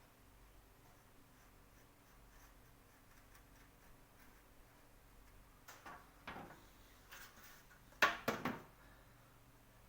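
Quiet room tone, then a handful of short knocks and clatters of objects being handled, the loudest cluster about eight seconds in.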